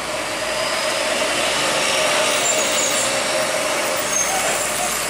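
Heavily loaded Hino 500 three-axle truck driving past, its diesel engine pulling uphill under load. It is a steady, loud drone with one held note, loudest about two seconds in and easing off near the end.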